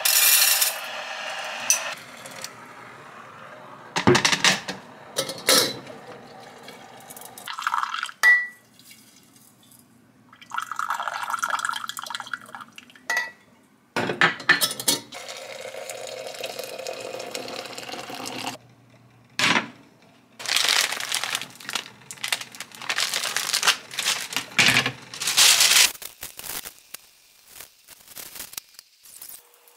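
Moroccan tea being made in a hammered stainless-steel teapot: a spoon and the hinged lid clink and knock against the metal pot, and water is poured in several times.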